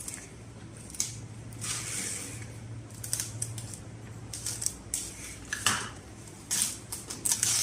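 Plastic cling wrap being pulled, torn and pressed over a plate, in a string of short crinkling rustles.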